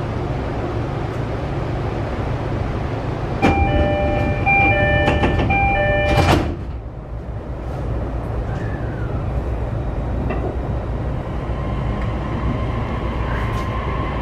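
JR East E531-series commuter train at a station stop: the door-closing chime plays a repeated pattern of tones for about three seconds, then the sliding doors shut with a thud. Near the end, a faint rising whine from the traction motors starts as the train pulls away, over a steady low rumble.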